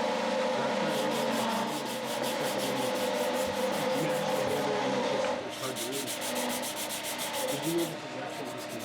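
Sandpaper rubbing steadily against a wooden mallet handle spinning on a wood lathe, over the lathe's running hum. The rubbing eases a little about five seconds in.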